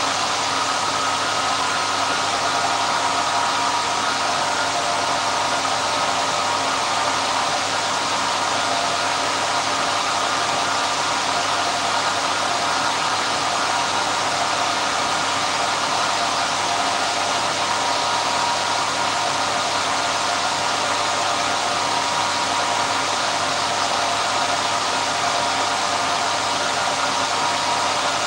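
The 1924 Alexanderson alternator and its drive running at operating speed for the SAQ transmission: a loud, steady mechanical whine and rush with several held tones that never change.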